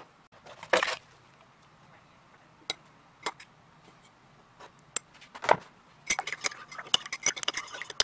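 Metal teaspoon clinking against a ceramic mug: scattered single taps and clinks, then a quick run of clinks from about six seconds in as the tea is stirred.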